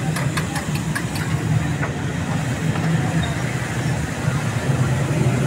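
Steady low rumbling noise, with a few sharp clicks in the first second.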